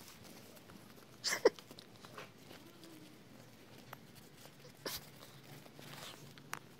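Yorkshire terrier puppy playing and mouthing at a hand, with one short, sharp yip about a second and a half in and a few quieter sharp sounds later on.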